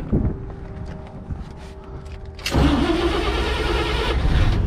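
1953 Chevrolet panel truck's inline six cranking on the starter about two and a half seconds in and catching near the end. It is being started with the carburettor choke closed by hand, because the choke cable is not connected.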